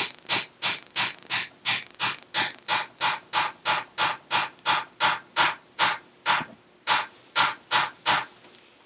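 A small hammer tapping a copper punch about three times a second, drifting a tight-fitting dovetail sight mount sideways into a Glock pistol slide's rear-sight dovetail. The taps come a little slower in the second half and stop shortly before the end.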